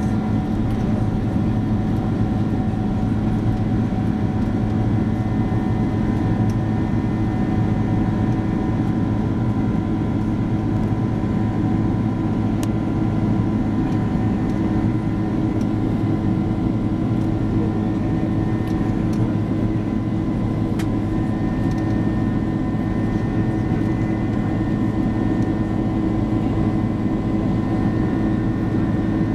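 Boeing 767-300ER turbofan engines at climb power, heard from inside the cabin beside the wing: a steady drone with several steady tones over an even rush of air.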